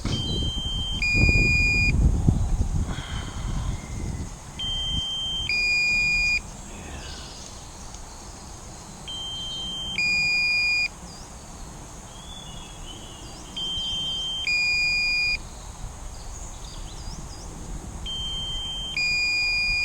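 Drone controller's low-battery warning beeping. Each beep is in two parts, a steady tone for about a second and then a different two-note tone for about a second, and it repeats about every four and a half seconds, five times. Wind gusts on the microphone over the first four seconds.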